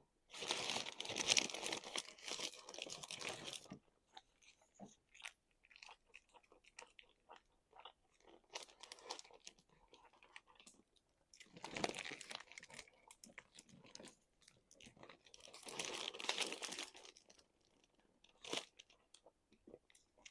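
Close-up eating sounds of a Crunchwrap: loud crunching bites through its crisp shell, in three spells (a long one of about three seconds at the start, then two shorter ones later), with softer wet chewing between them and one sharp crunch near the end.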